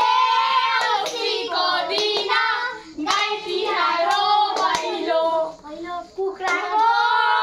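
High-pitched children's voices singing in held, sliding phrases, with a few sharp hand claps between them.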